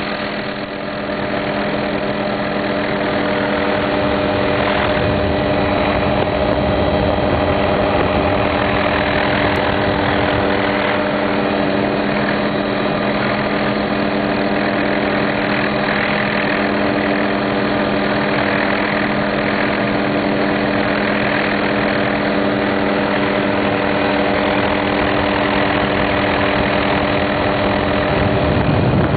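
Helicopter engine and rotor heard from inside the cabin: a steady drone with several held low tones.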